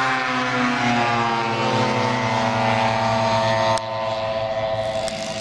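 Valach VM R5-420 five-cylinder radial engine of a half-scale model aircraft running at a steady speed, easing down slightly in the first second. About four seconds in the sound drops suddenly in level and loses its upper hiss, with the engine still running.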